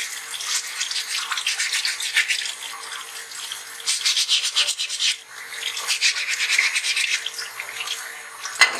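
Wet waterproof sandpaper scrubbing a dental stone model in rapid back-and-forth strokes, in spurts with short pauses, under a running tap. A single sharp knock near the end.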